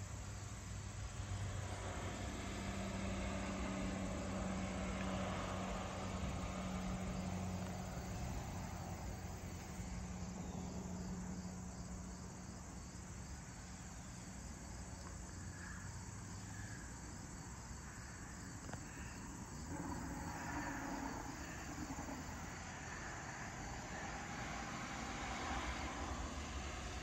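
Crickets chirping in a steady evening chorus. A steady low hum underlies the first half and fades out.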